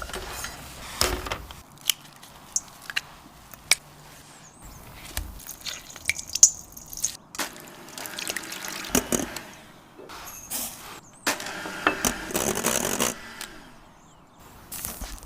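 Kitchen handling sounds while a cake is worked on: scattered light clicks and taps, with two longer soft, wet squishing stretches partway through and near the end.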